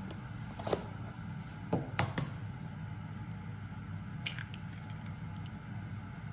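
An egg being tapped and cracked open by hand over a frying pan: a few sharp knocks about two seconds in, then a brittle crack of shell a little after four seconds, over a steady low hum.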